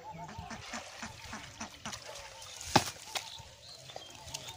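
Short, repeated animal calls with scattered clicks, and one sharp knock a little past the middle.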